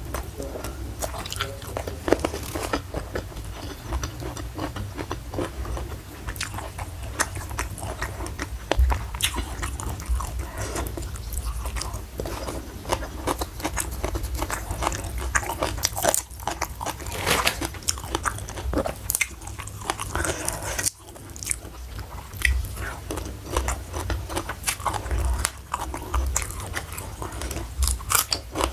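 Close-miked eating: crunchy bites and chewing of food, with many irregular small crunches, clicks and smacks, and a steady low hum underneath.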